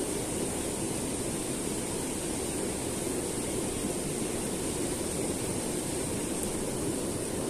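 Steady rushing of a small river's flowing water, an even unbroken noise with a faint steady high hiss above it.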